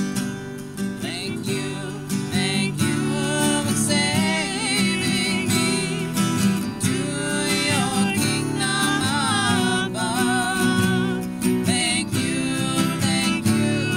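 Two acoustic guitars strummed and picked together in a country-style tune, with a voice singing along.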